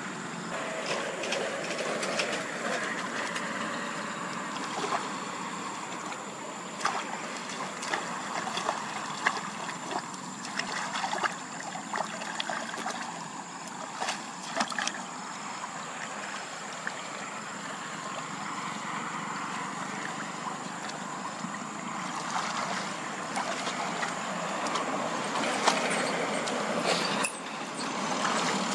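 Shallow water flowing and gurgling over stones in a clogged drain channel, with splashes and scattered sharp clicks as weeds and debris are pulled out of the water by hand.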